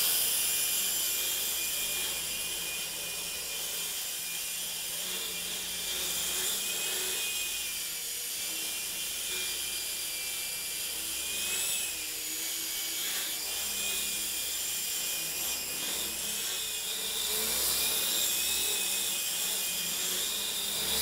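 Hirobo Quark micro electric RC helicopter in flight: a steady high-pitched motor and rotor whine that rises and falls slightly in pitch as it is flown about. Its rotor blades are repaired with five-minute epoxy.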